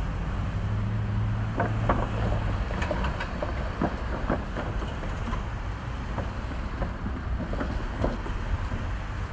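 Steady low rumble of road vehicles crossing the tracks and a freight train moving away, with scattered light clicks and knocks. A pickup truck's engine hum stands out for the first two seconds or so, then fades.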